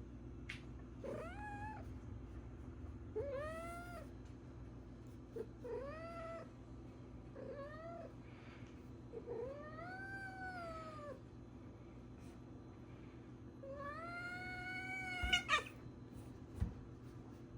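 Calico mix cat meowing again and again, about six drawn-out meows each rising then falling in pitch, the last one the longest. Two short knocks come near the end.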